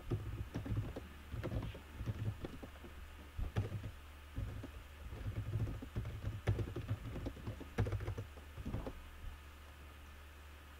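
Typing on a computer keyboard: runs of quick keystroke clicks that stop about nine seconds in. A low steady hum sits underneath.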